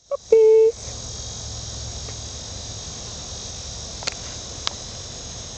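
A short, loud, flat beep right at the start, then a steady high chorus of insects, crickets by the sound, with two faint clicks about four seconds in.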